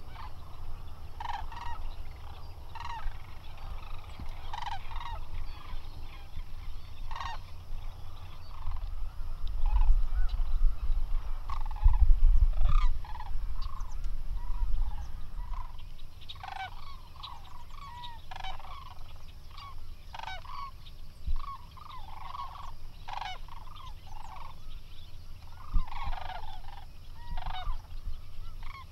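A flock of sandhill cranes calling in flight: many overlapping rolling, rattling bugles throughout, over a low rumble that is heaviest in the middle.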